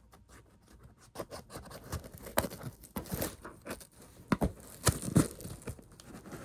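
Scissors cutting into a cardboard shipping box: an irregular run of snips, crunches and tearing of cardboard, several louder ones in the middle of the stretch.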